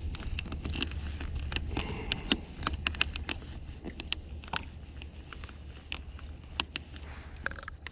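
Low-profile baitcasting reel being cranked while bringing in a fish on a kayak, with irregular sharp clicks and ticks over a low rumble of wind and water.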